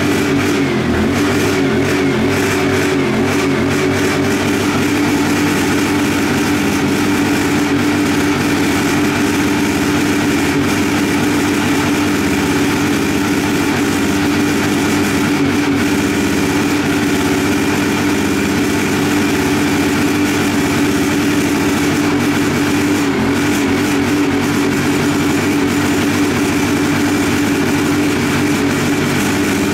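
Small four-stroke engine of a portable inverter generator running steadily with its eco mode switched off, the hum wavering slightly in pitch now and then.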